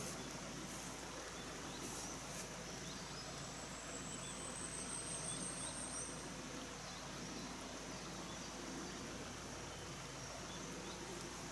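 Steady rush of a small forest stream. A high, fast-pulsed insect-like trill rises in over about two and a half seconds in the middle.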